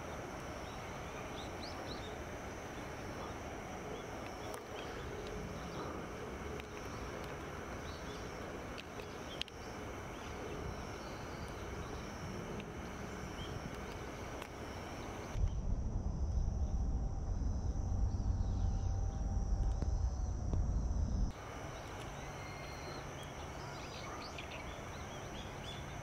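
Outdoor ambience: background noise with a steady high-pitched hum and a few faint short bird calls. About two-thirds of the way in, a loud low rumble cuts in abruptly, lasts about six seconds, and stops just as abruptly.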